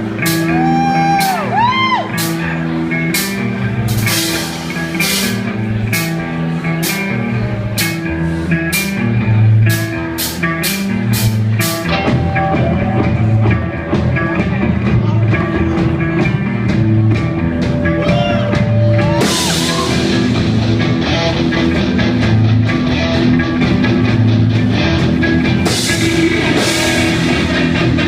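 A live rock band playing: an electric guitar with bent notes over bass and a drum kit, with regular drum and cymbal hits through the first half.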